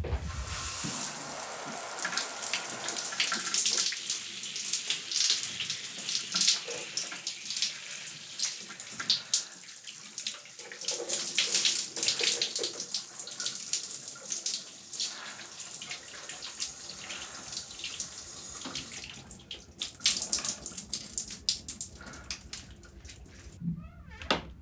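Shower running, water spraying and spattering with an irregular splashing. It thins out after about 16 seconds, swells again around 20 seconds and drops away near the end.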